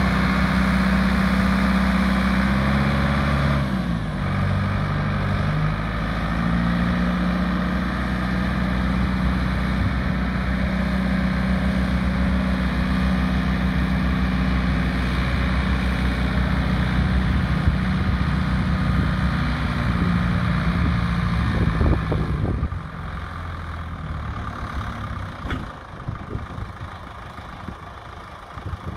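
Massey Ferguson 5710 tractor's four-cylinder diesel engine running while the tractor is driven, its note shifting about four seconds in. About 22 seconds in the sound drops to a quieter running, with a few knocks after.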